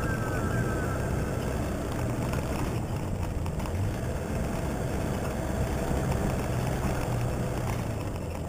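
Toyota Hilux 4x4 engine running steadily while driving an off-road track, under a constant noise of tyres and rattling over rough ground.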